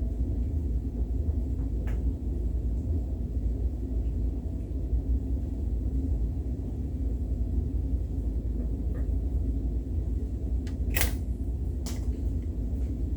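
Steady low rumble with a few sharp clicks and knocks, the loudest about eleven seconds in.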